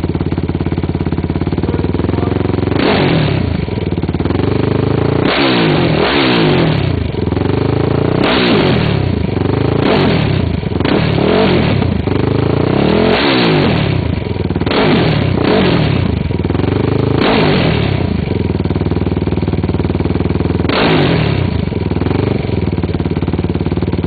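2004 Yamaha YFZ450's single-cylinder four-stroke engine through a Curtis Sparks racing exhaust, idling and revved in about a dozen quick throttle blips, some in fast pairs and triples, each rising sharply and dropping straight back to idle.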